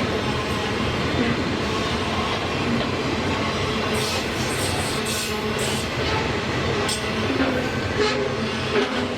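Freight train rolling past close by: a steady heavy rumble of cars on the rails, with scattered clacks and clicks from the wheels.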